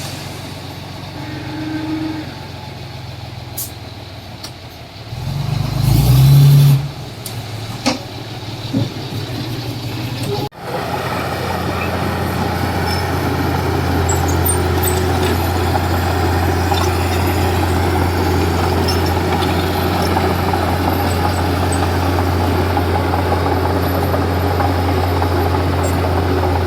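Diesel engine of a Komatsu D31P bulldozer running, with a loud surge about six seconds in and a few sharp clanks. About ten seconds in the sound cuts briefly, then the engine runs on in a steady, louder drone.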